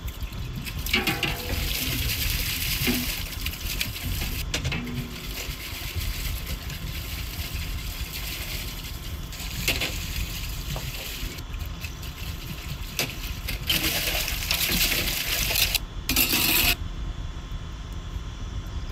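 Glass jars being washed by hand in a basin of water: water splashing and sloshing, with glass clinking against glass in short clicks.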